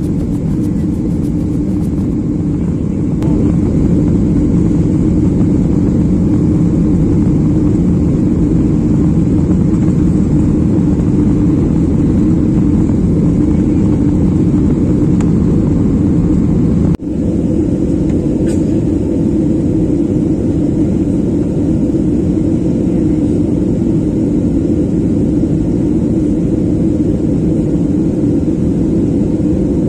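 Steady jet engine and airflow noise inside the cabin of a Boeing 737 airliner in its climb, a heavy, even rumble. It steps up in loudness about three seconds in and breaks off for an instant about seventeen seconds in.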